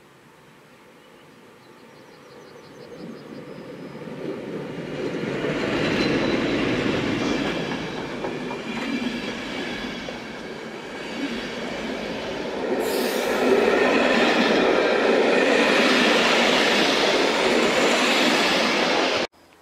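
Electric-locomotive-hauled passenger train approaching and passing close by, its coaches' wheels rolling over the rails, growing loud from about three seconds in. A brief high squeal about two-thirds of the way through; the sound cuts off suddenly near the end.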